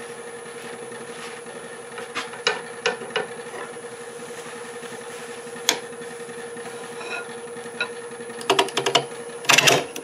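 Wood lathe, a Laguna Revo 1836, spinning a rough black locust bowl blank with a steady hum and a high whine. Scattered clicks and taps come over it as the turning tool is brought up, with a quick run of them near the end.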